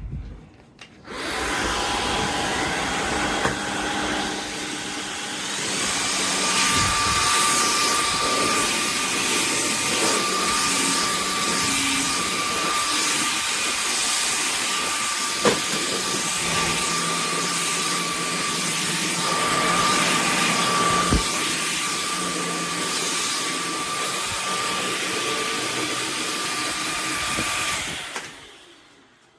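CHEBIO V18 cordless stick vacuum cleaner running with a steady whine over its airflow noise. It starts about a second in and winds down near the end.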